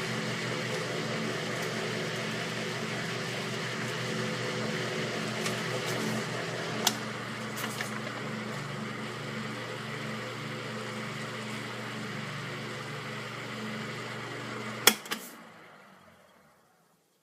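Electric fan running with a steady motor hum and whir. There is a click about seven seconds in, after which the hum changes slightly. A louder switch click comes near the end, and the fan then winds down to silence.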